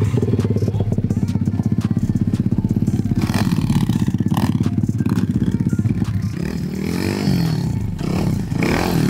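Single-cylinder four-stroke engine of a 190cc SYX pit bike running at a held throttle through a long wheelie, then revving up and down several times in the last few seconds.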